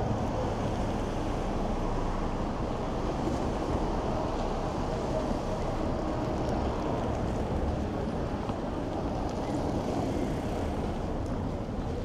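Steady outdoor rushing noise with a low rumble underneath, unbroken throughout.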